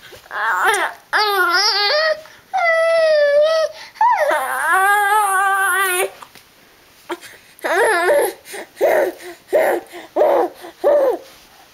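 Baby making high-pitched vocal noises: several long, wavering squealing calls, then a string of about five short, repeated syllables.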